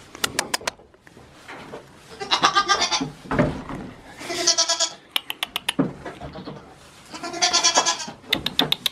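Goats bleating: three long, wavering bleats, with short runs of quick, sharp clicks between them.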